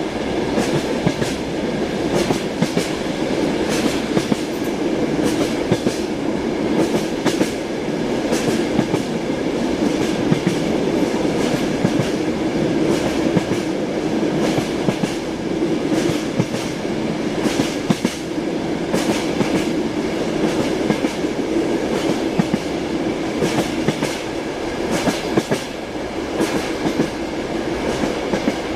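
Passenger train running along the rails, heard from inside the carriage: a steady rumble with the clickety-clack of the wheels knocking over rail joints again and again.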